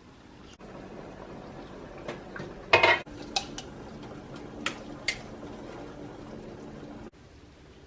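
Dishes and cutlery clattering and clinking: a loud clatter nearly three seconds in, then a few single sharp clinks, over a steady low hum.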